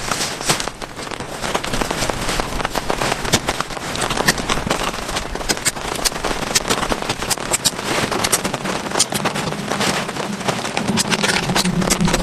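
Heavy rain: a dense, irregular patter of loud drops. A low steady hum comes in near the end.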